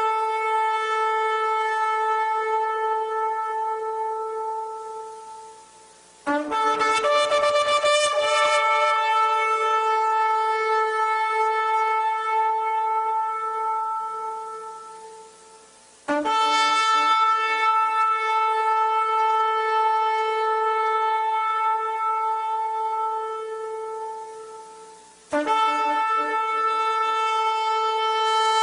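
Shofar sounding long blasts on one steady note. Each blast fades away over several seconds before the next begins sharply, about six, sixteen and twenty-five seconds in, each starting with a brief lower, rougher note.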